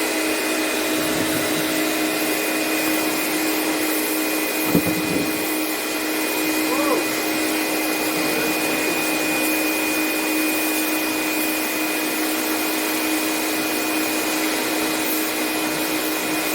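Electric high-pressure washer (Lakoni Laguna, 550 W) running steadily: a motor-pump hum with a high whine over the hiss of the water jet. A brief knock about five seconds in.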